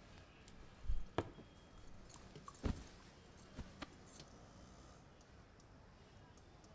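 A few soft knocks and light metallic clinks in a quiet room, the loudest about a second in and just under three seconds in: a stainless-steel plate being handled as someone sits down on a wooden sofa.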